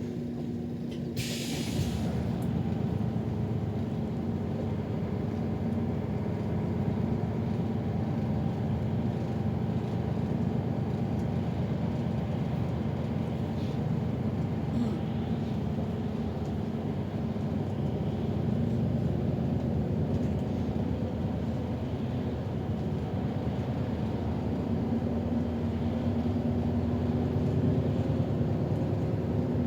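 City bus driving, heard from inside: a steady engine and road rumble with a low hum. A short hiss of air comes about a second in.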